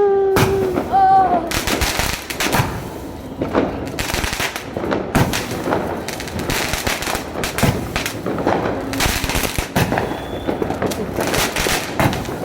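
Fireworks going off: rapid, irregular popping and crackling, with some louder bangs among them.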